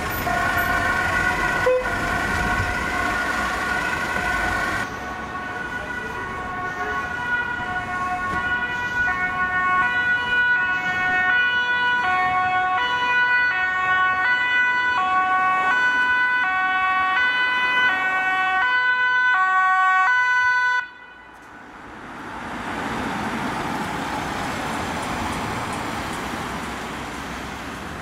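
Dutch ambulance two-tone siren, switching back and forth between a high and a low pitch in a steady rhythm. Near the end the siren cuts off suddenly, and the tyre and engine noise of a passing vehicle swells and fades.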